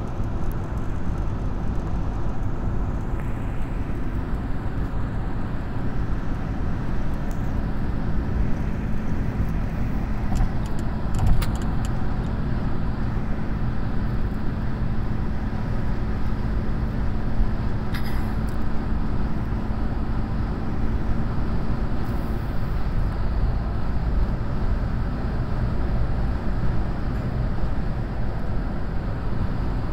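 Steady road and engine noise inside a car cabin while driving at motorway speed, mostly low rumble and tyre roar. There is a brief knock about eleven seconds in.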